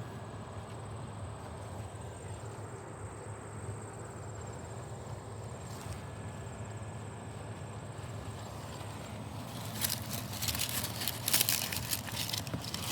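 Steady outdoor background with a faint, steady high-pitched tone. About ten seconds in, leaves begin rustling and crackling as they are disturbed, and this goes on to the end.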